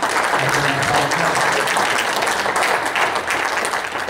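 Church congregation applauding: many hands clapping together, steady and dense, then starting to die away near the end.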